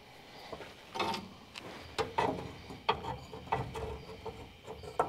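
A metal fuel-tank strap being worked by hand into its slot in a car's underbody, giving a handful of irregular clinks and knocks of metal against metal.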